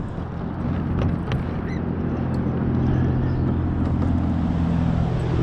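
A motor runs with a steady low hum that grows louder about two seconds in, with two sharp clicks about a second in.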